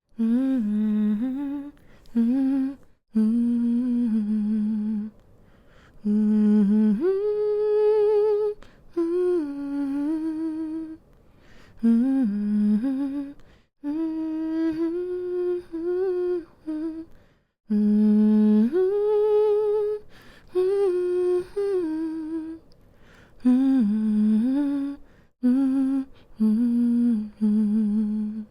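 A woman humming a slow, gentle lullaby tune with her mouth closed, in held notes that glide up and down, with short pauses for breath between phrases.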